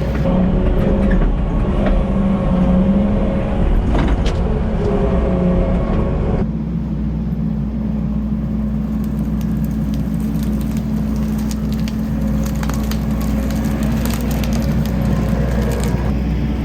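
Kubota skid steer's diesel engine running steadily under load while it shoves and crushes brush and downed pine trees, with wood cracking and snapping now and then.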